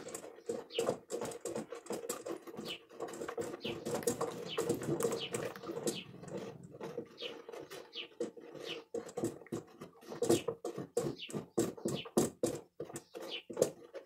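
A stick stirring thick limewash (lime mixed with nopal water) in a galvanized metal bucket: rapid, irregular scraping and knocking against the bucket's sides and bottom.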